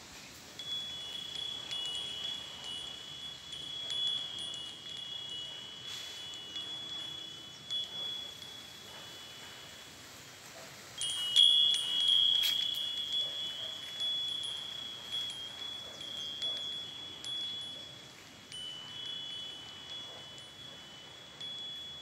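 Hanging wind chime of two bells ringing as the breeze swings it, a high ringing tone with two close pitches. It dies down a little before halfway, then a louder strike about eleven seconds in sets it ringing again.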